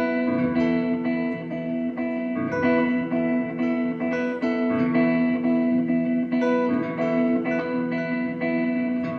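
Two electric guitars played together through amplifiers and effects pedals: layered held, ringing notes that shift to new pitches every second or so.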